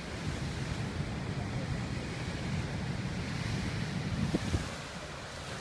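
Ocean surf breaking and washing over a rocky shore, with wind buffeting the microphone as a steady low rumble and a couple of low bumps about four and a half seconds in.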